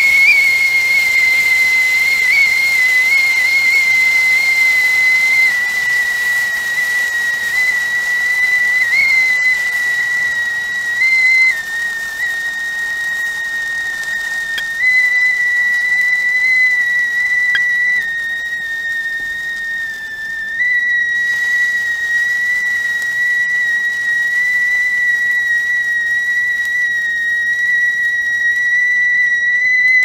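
Whistling teapot on the boil: one steady high whistle over a hiss of steam, its pitch wavering slightly and stepping a little up or down now and then.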